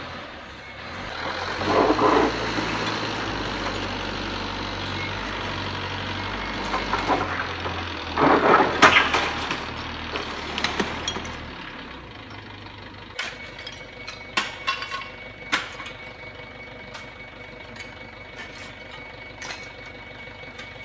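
Forklift engine running while its forks, fitted with a makeshift steel-plate scoop, push into dirt and scrap debris, with loud scraping and clattering about two seconds in and again around eight to nine seconds in. The engine sound ends about twelve seconds in, and sharp scrapes and knocks of a hand shovel digging in the debris follow.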